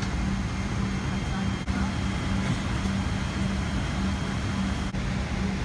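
Steady cabin noise inside a Boeing 777-200 airliner: a continuous rush with a constant low hum, broken by two brief dips about a second and a half in and near the end.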